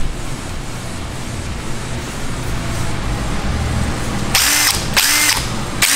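Cordless drill revved in three short trigger bursts about four seconds in, the motor whine dropping as each burst is let off.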